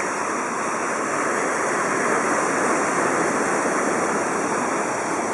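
Steady rushing of floodwater.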